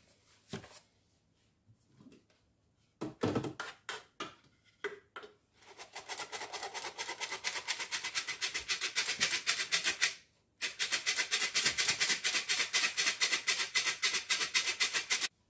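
Hand-held stainless steel flour sifter being worked, its agitator scraping flour through the mesh in fast, even clicks, with a short break about two-thirds of the way through. A few handling knocks come before the clicking starts.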